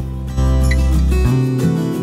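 Background music: an acoustic guitar playing held chords that change a few times.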